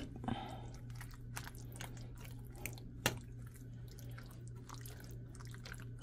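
A metal spoon stirring thick baked beans and hot dog pieces in a glass bowl: faint wet squelching with many light clicks of the spoon against the glass, one sharper about three seconds in.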